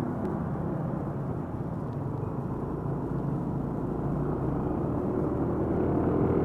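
Motor scooter engine running steadily with road noise, slowly getting louder.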